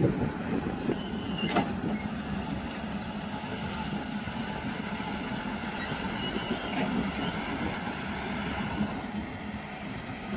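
Heavy diesel engines of a loaded dump truck and a Volvo wheeled excavator running, a steady low drone. A single sharp knock comes about one and a half seconds in.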